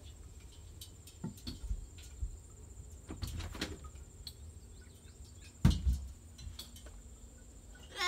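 High, steady insect trill, such as crickets, over scattered knocks and handling noise, with one loud thump about two-thirds of the way through.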